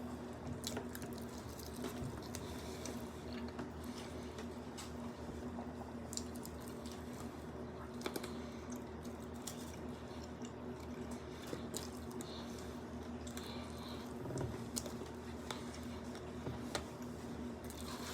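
Wet chewing and mouth sounds of people eating, with scattered small clicks and crackles, over a steady low hum.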